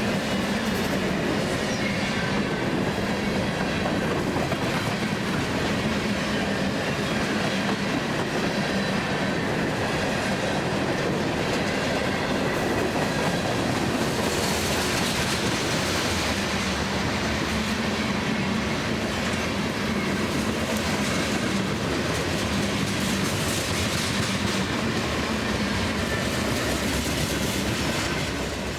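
CSX freight train M652's cars rolling past, their steel wheels on the rails making a steady, continuous rumble and clatter.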